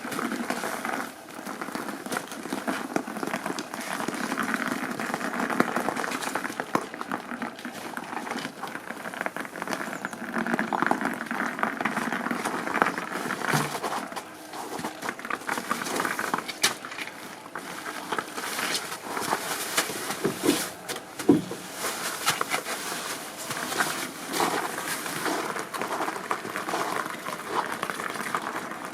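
2007 Honda CR85 85cc single-cylinder two-stroke engine warming up at idle after a cold start, through a Pro Circuit R-304 shorty silencer, giving a continuous irregular crackle whose loudness rises and falls unevenly.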